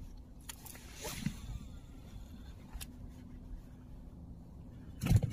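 Handling noise from fishing tackle and clothing in an inflatable boat: a few scattered clicks and rustles over a faint steady hum, then two louder knocks near the end.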